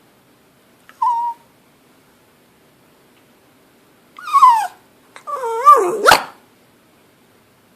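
A pet dog whining to beg for food. There is a short whine about a second in, a falling whine about four seconds in, then a longer wavering whine that ends in a sharp bark.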